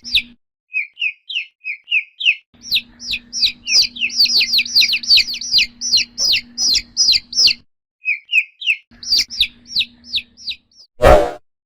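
Chick peeping: runs of high, falling peeps, about three to four a second, broken by short pauses, over a faint steady hum. A short, loud burst of noise comes near the end.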